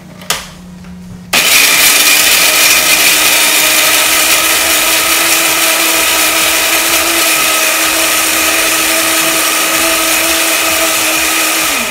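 Countertop electric blender switched on about a second in, running steadily with a motor whine as it purées a wet spice paste, then cutting off just before the end. A sharp click comes just before it starts.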